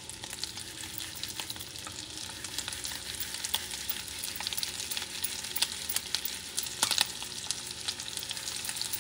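Shrimp frying in melted butter in a cast iron skillet: a steady sizzle with many small crackling pops, and one louder pop about seven seconds in.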